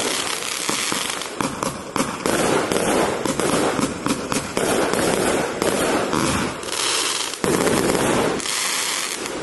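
A 200-shot compound firework cake firing from 20 mm tubes, its shots going off in rapid succession with bursting, crackling stars.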